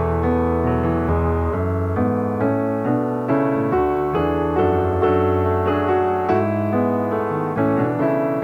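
Background piano music, a steady run of notes with no speech over it.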